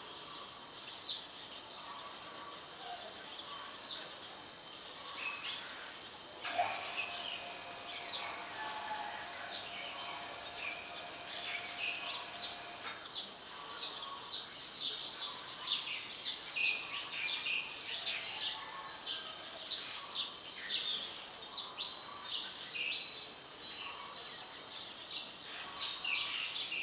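Many birds chirping, with short, high calls packed closely throughout. A steady low hum comes in about six seconds in and stops around thirteen seconds.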